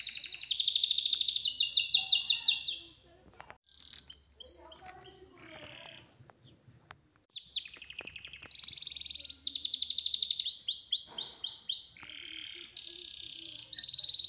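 Songbirds singing in rapid, high trills and chirps, dropping away to a much quieter stretch a few seconds in before starting up again.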